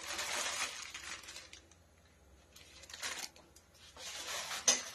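Rice flour being sprinkled over a plate of coated potato balls: three short dry rustling bursts, ending with a light clink about four and a half seconds in.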